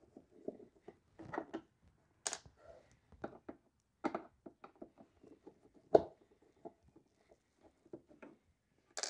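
Hand Phillips screwdriver backing screws out of the plastic top housing of a DeWalt DW735 thickness planer: scattered small clicks and ticks of the driver and screws, with a sharper click about six seconds in.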